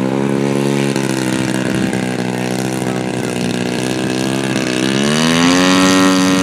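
Two-stroke gas engine of a one-third-scale RC airplane running steadily as it taxis on grass, then throttled up about five seconds in, its pitch rising and holding higher and louder.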